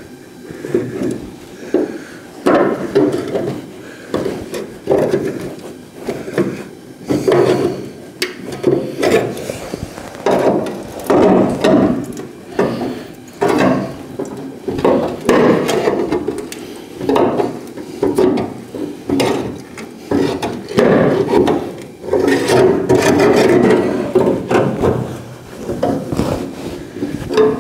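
Hand tool scraping and rubbing against the rusty sheet steel of a 1970 El Camino's rear quarter panel and wheel house in irregular strokes, with occasional knocks, as the panels are worked apart.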